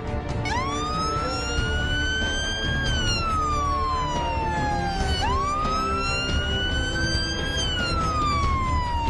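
Police siren wailing in two slow cycles, each rising for about two seconds and then falling for about two, the second cycle starting about five seconds in, over a steady low rumble.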